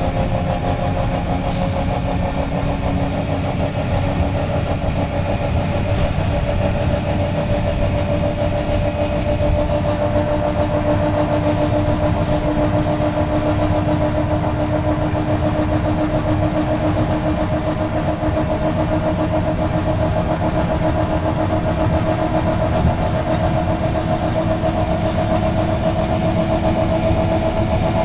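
Detroit Diesel 6V92TA two-stroke V6 diesel of a 1985 GMC RTS transit bus running steadily, with a whining tone that creeps slowly higher in pitch.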